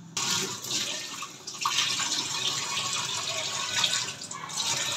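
Steady rushing of running water, cutting in suddenly right at the start.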